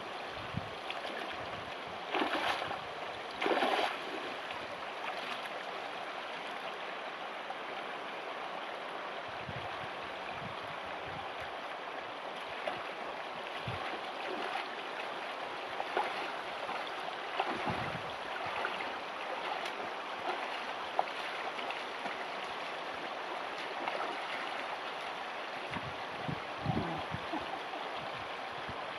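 Shallow, rocky river flowing steadily over stones, with splashes of a hiker wading through it; the two loudest come about two and three and a half seconds in.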